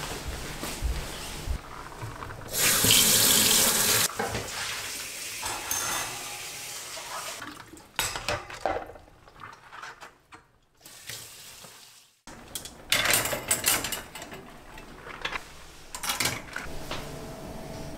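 Kitchen tap running into the sink for a second or two, then dishes and plastic containers clattering in a stainless dish rack, and metal utensils clinking as a ladle is taken from its hanging rail near the end.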